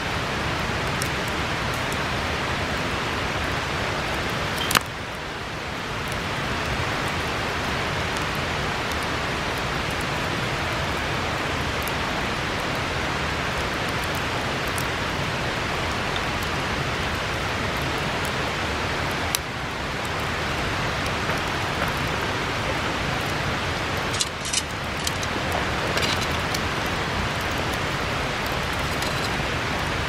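Steady rushing of a river, with a few sharp pops from a wood bonfire: one near the start, one midway and a short cluster in the last third.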